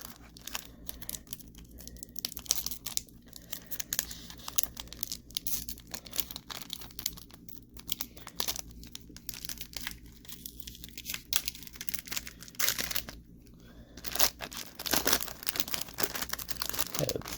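A sealed baseball card pack's paper wrapper being torn open and crinkled by hand, with irregular crackles and crisp tearing that grow louder in a few bursts over the last few seconds. A faint steady low hum runs underneath.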